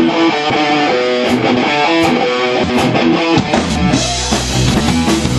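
Live rock band: an electric guitar plays a riff of separate notes with light cymbal hits, then bass and full drums come in about three and a half seconds in.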